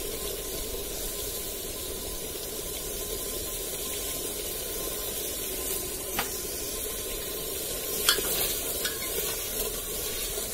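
Mutton cooking in its masala gravy, sizzling steadily in a metal pot over a wood-fired chulha, with a few sharp clicks about six and eight seconds in.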